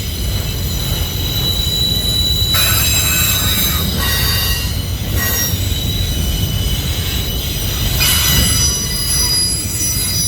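Freight cars of a CSX manifest train rolling past with a steady low rumble, their wheels squealing in several high tones that fade in and out.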